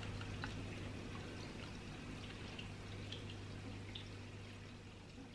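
Quiet room tone: a steady low hum under a faint hiss, with a few soft clicks from the camera being handled, fading slightly toward the end.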